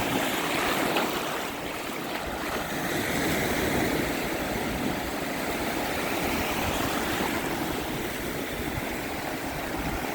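Small surf breaking and washing up a beach: a steady rushing hiss that swells and eases every few seconds.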